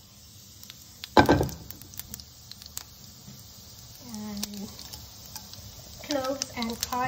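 Cumin seeds sizzling in hot olive oil in a pan, with scattered small pops throughout. There is one loud sudden burst about a second in.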